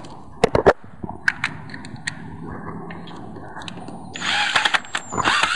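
Battery-powered cordless drill working the last hole of a boat's transom anchor mount, with a few sharp clicks about half a second in and a louder run of the motor in the second half; near the end its whine rises as it spins up.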